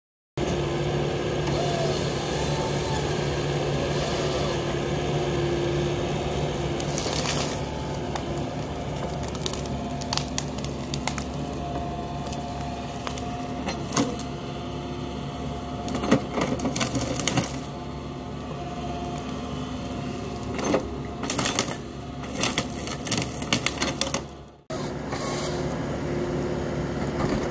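Tracked excavator's diesel engine running steadily while a Kesla 16RH-II processor head handles logs, with repeated sharp knocks and clunks of wood and steel that are busiest from about seven seconds until the sound drops out briefly near the end.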